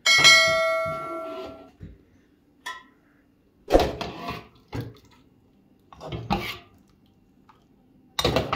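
A metal object struck once, giving a loud metallic clang that rings on with a clear tone and dies away over about a second and a half. Several shorter, duller sounds follow later.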